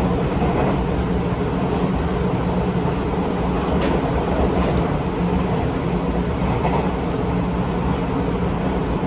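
Seibu 20000 series electric train running between stations: a steady rolling rumble with a few brief clicks from the wheels over the track.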